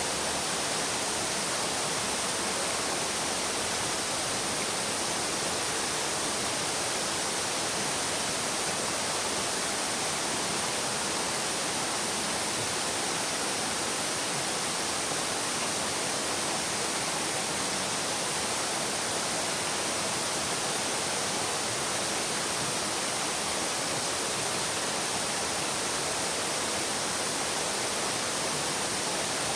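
Babbling brook: a steady, even rush of running water.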